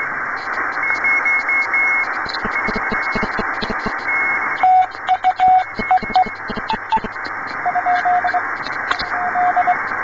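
Amateur shortwave radio receiver tuned in the 15-metre band's Morse section: steady band hiss with crackling static, and from about five seconds in a weak Morse code signal keyed on and off as a single tone.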